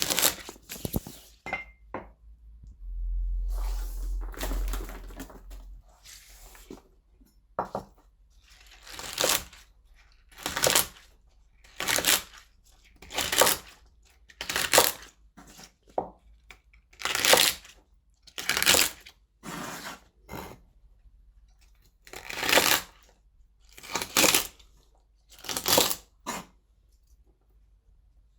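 Kitchen knife chopping garlic scapes on a chopping board: single cuts about every one and a half seconds, each a short crisp snap of the knife through the stalks onto the board. Near the start come a few clicks and a few seconds of steady rustling as the scapes are handled.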